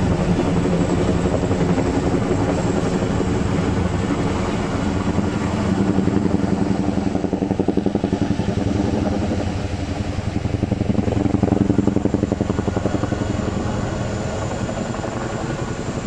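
Tandem-rotor helicopter flying overhead, its rotors beating rapidly and evenly with a low engine hum beneath, swelling louder twice as it passes.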